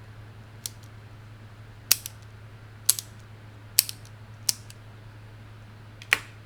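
Single keystrokes on a custom 50% mechanical keyboard: about six separate sharp clacks, roughly a second apart, several followed closely by a softer click as the key comes back up.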